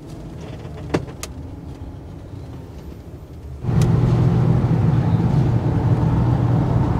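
Inside a Ram van's cab: at first a quiet engine idle with two sharp clicks about a second in. Then, after about three and a half seconds, a louder steady low hum of the engine and tyres as the van cruises on the road.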